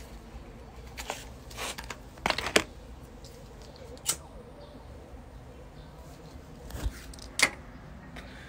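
Handling noise as a cigarette is taken from its pack and lit: short rustles and scattered sharp clicks, several in the first three seconds, one about four seconds in and two more near the end.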